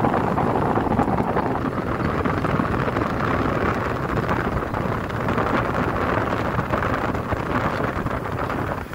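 Steady rush of a car or jeep driving along at speed, its road and engine noise mixed with wind buffeting the microphone from the open window.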